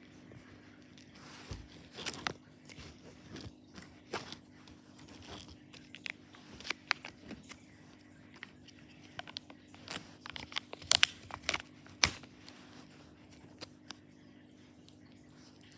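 Irregular sharp clicks and short crunchy crackles from small hard things handled close up, a few louder clicks about eleven and twelve seconds in.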